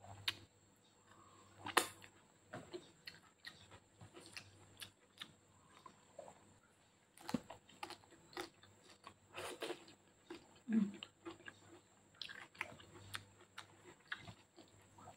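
Close-up eating sounds of a person chewing a mouthful of spaghetti, with many short, sharp, wet mouth clicks and smacks scattered throughout.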